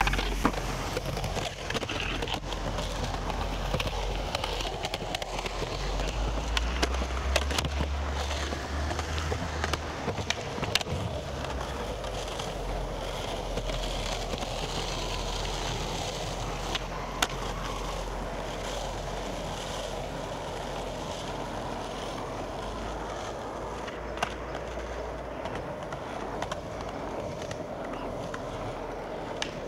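Skateboard wheels rolling over pavement, a steady rumble, with several sharp clacks of boards popping and landing spread through it.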